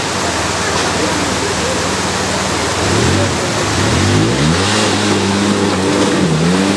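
Polaris RZR side-by-side engine revving over a steady rushing noise. About three seconds in its pitch climbs, then holds high with a brief dip near the end.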